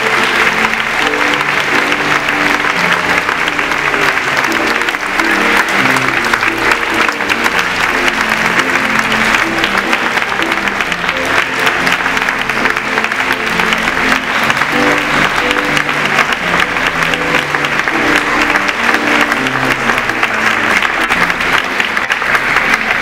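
An audience applauding steadily while music plays underneath, a run of low held notes.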